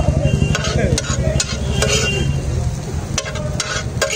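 Aloo tikki sizzling as they fry, with a metal spatula scraping and clanking on the cooking pan about half a dozen times. A low rumbling hum runs under it, strongest in the first second.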